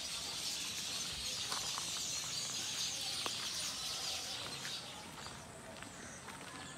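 Outdoor ambience: a steady high-pitched chorus hiss, with a few faint clicks, that fades away about five seconds in.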